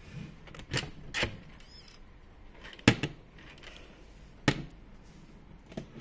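A handful of short, sharp clicks and knocks from handling an EZVIZ smart lock on a door, coming in ones and twos a second or so apart.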